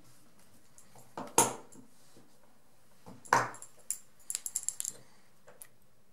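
Small hard clicks and knocks of fly-tying tools being handled at the vise: two knocks about a second in, a louder one a little past three seconds, then a quick run of light ticks.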